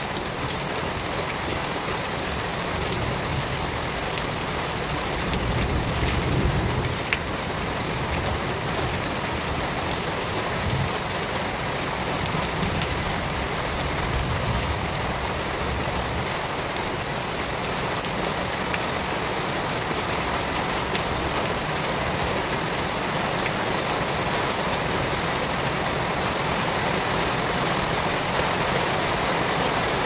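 Shallow water running over stones and debris: a steady, even hiss of moving water with small splashes throughout.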